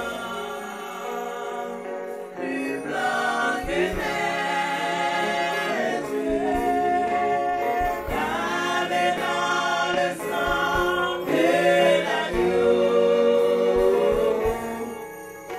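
A choir singing gospel music, the voices holding long notes that glide between pitches.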